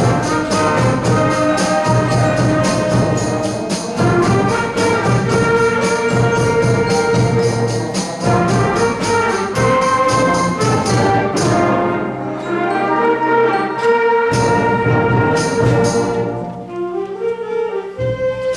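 School concert band playing a gospel- and blues-influenced piece: held brass chords with woodwinds over a steady percussion beat. The percussion drops out briefly past the middle, and the band grows quieter and thinner near the end.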